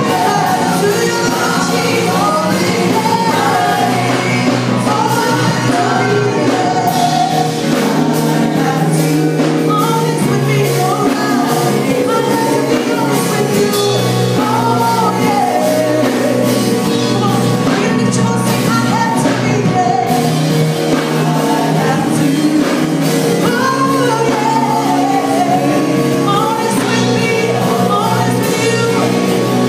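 Live worship band performing a gospel song: women singing lead and backing vocals over electric guitars and keyboard, loud and continuous.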